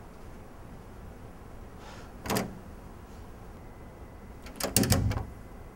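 A door being handled: a short clack about two seconds in, then a louder cluster of knocks and clicks near the end as it is shut, over a low steady room hum.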